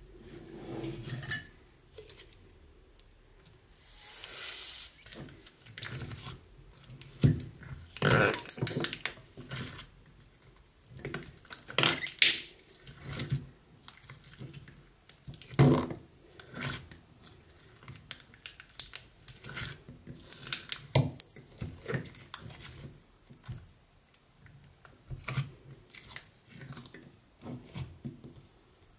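Sticky slime being poked and pressed, giving irregular sticky clicks, crackles and pops, with a longer crackling swell about four seconds in.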